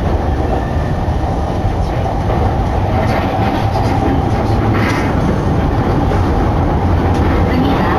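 Yamanote Line commuter train running, heard from inside the carriage: a steady rumble of wheels on the rails with a few faint clicks.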